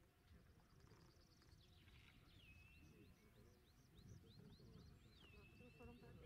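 Faint shepherd's whistle command to a working border collie, given twice: a quick run of short high notes, then a falling whistle held steady, over a low outdoor rumble.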